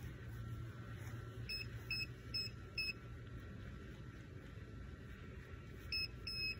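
Handheld metal detector beeping as its search coil is swept over the grass: four short beeps about half a second apart, then two more near the end, the second a little longer. The beeps are the detector signalling a metal target in the ground.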